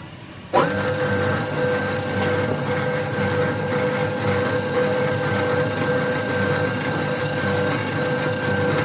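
Foundry sand mixer starting up about half a second in, then running steadily with a constant whine over a grinding, scraping noise as it churns moulding sand.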